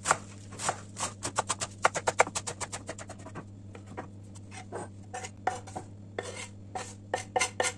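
Kitchen knife chopping parsley on a wooden cutting board, a quick run of strokes at about six a second in the first few seconds. After a short lull, the knife scrapes and taps the chopped parsley off the board into a glass bowl, the taps growing faster near the end. A steady low hum runs underneath.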